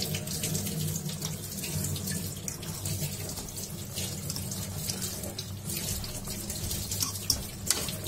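Conger eel pieces simmering in white wine and water in a non-stick pan, the liquid bubbling steadily. A fork clicks against the pan now and then, with two sharper clicks near the end.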